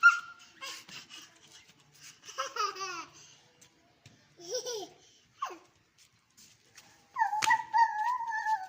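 Street dogs giving short, falling whining yelps with pauses between them, then one long, drawn-out cry starting near the end.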